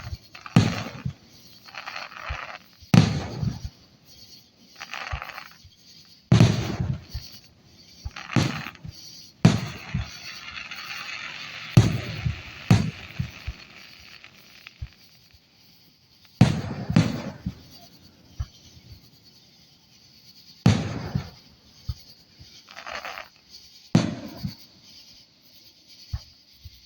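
Aerial fireworks going off: about a dozen separate booming bursts spaced a few seconds apart, with a stretch of crackling in the middle.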